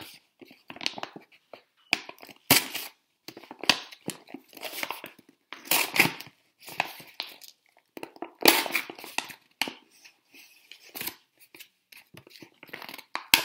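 A pencil point poking through a thin paper journal page: irregular bursts of paper tearing and crinkling, with a few sharper pops as the point breaks through.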